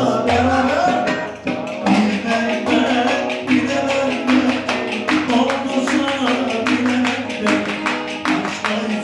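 Fast Ankara oyun havası dance tune led by the saz (bağlama), its melody running over a dense, driving percussion beat.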